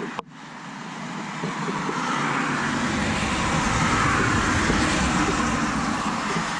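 A car passing on a wet road: a tyre hiss with low rumble that swells to a peak about four seconds in, then eases a little.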